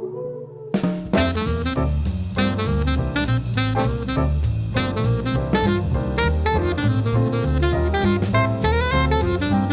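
Jazz-style music with a steady drum beat and a melody line starts about a second in, following the quiet tail of a softer piece.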